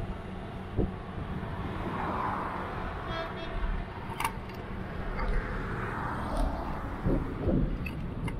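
Road traffic passing a moving bicycle on a main road, with wind rumbling on the microphone. The traffic noise swells twice, and there is a single sharp click about four seconds in.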